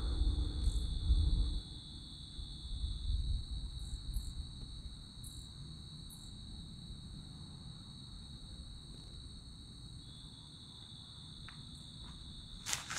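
Crickets trilling steadily in the dark, a continuous high-pitched chorus. A low rumble fills the first second or so, and a sharp click sounds near the end.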